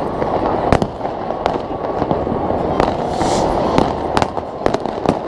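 New Year's Eve fireworks going off: sharp bangs, one or two a second, over a steady background din.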